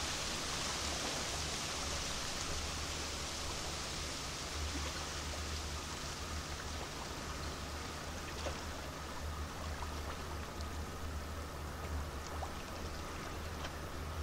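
Large cruise ship passing close: a steady rushing hiss over a low, pulsing hum from its machinery.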